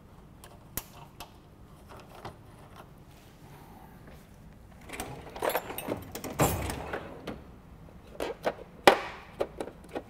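Scattered clicks and knocks from hands working on car parts. A louder clattering stretch comes about five to seven seconds in, and a sharp knock near nine seconds.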